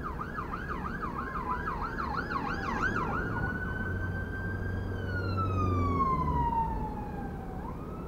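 Emergency vehicle siren sounding in a fast warbling yelp, then switching about three seconds in to a slower wail that falls steadily in pitch and starts rising again near the end, over low vehicle rumble.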